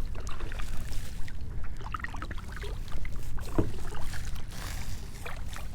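Kayak paddle dipping and pulling through the water, with splashes and drips between strokes over a low rumble.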